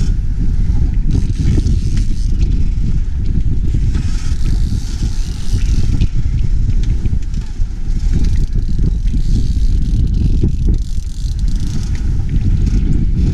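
Strong wind buffeting the microphone in a steady low rumble, over the hiss of water rushing past the hull of a sailboat under way.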